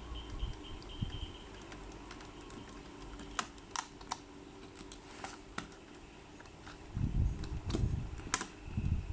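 Hands handling small packaging: scattered sharp clicks and taps, with a cluster of dull bumps and handling noise about seven seconds in.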